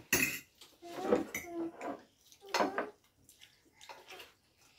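Forks clinking and scraping on plates while spaghetti is eaten: a sharp clink right at the start, then a few short bouts of clatter and scraping about a second apart.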